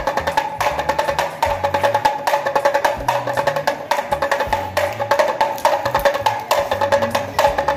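Damru, the small two-headed hourglass hand drum, rattled by quick twists of the wrist: a fast clatter of strokes with a pitched ring, in runs of about a second with short breaks between them.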